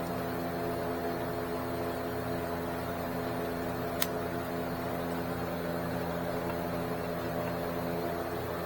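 Steady machine hum at an even level, with a single sharp click about four seconds in.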